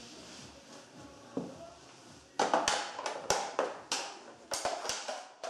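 A toy model car being stepped on by sneakers: a run of about ten sharp cracks and knocks, starting a little past halfway, as the car's body takes the wearer's weight.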